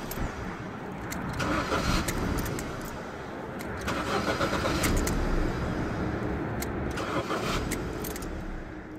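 Ford Fiesta Mk6 1.4 engine turned over by its newly fitted starter motor and running, the sound swelling and easing a few times. Keys jangle at the ignition.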